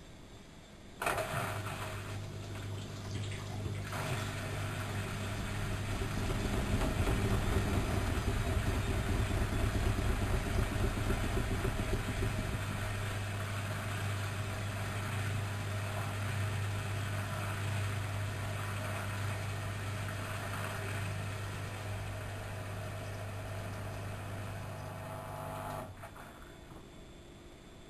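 Studio WM26AAA washing machine with a steady electric hum over rushing water. It switches on abruptly about a second in, swells for a few seconds, and cuts off sharply after about 25 seconds.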